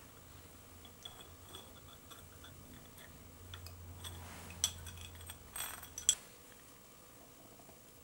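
Light clinks, taps and scrapes of a thin tool against a small glass bottle as it works inside the neck, with the sharpest clinks about halfway through and about six seconds in. A low steady hum runs underneath and cuts off at about six seconds.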